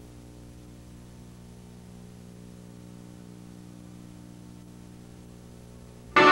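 Steady low electrical hum with nothing else over it, then loud music starts abruptly near the end, as the stage dance begins.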